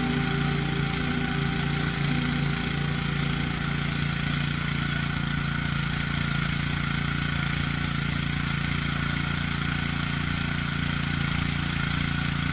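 Honda GX160 single-cylinder four-stroke engine of a mini tiller running steadily at an even speed.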